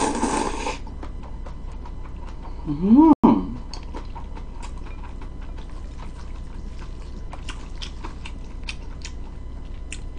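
Jjolmyeon noodles slurped in the first second, then chewing with scattered small clicks of chopsticks against a glass bowl. About three seconds in there is a short vocal sound from the eater, rising then falling in pitch, the loudest moment.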